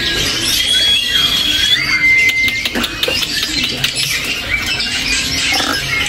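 Many caged songbirds chirping and whistling together, with long steady whistled notes held for about a second at a time among quick chirps.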